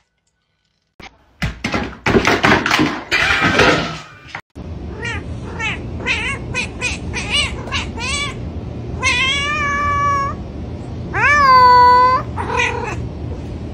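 Tabby cat meowing: a run of short chirping meows, then two long drawn-out meows, the second the loudest, and a short meow at the end. Before the meows there are a few seconds of loud, unpitched noise.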